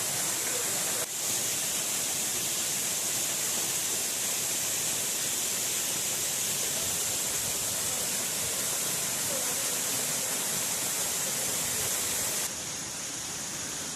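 Waterfall's steady rush of falling water, a continuous hiss with a brief dip about a second in and a slightly quieter stretch near the end.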